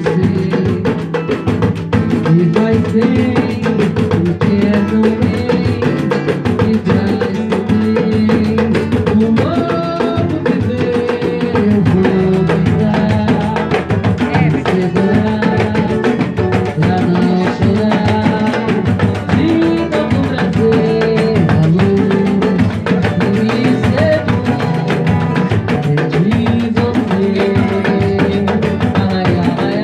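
Drums and percussion playing a continuous rhythm, with short pitched notes layered over it.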